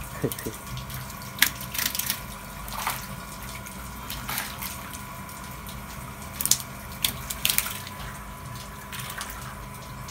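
Shallow pond water sloshing, with several short, sharp splashes as a hand net and hands are worked through it, over a steady hum.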